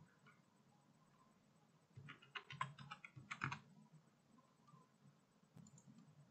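Faint typing on a computer keyboard: a quick run of keystrokes about two seconds in, then a single click near the end.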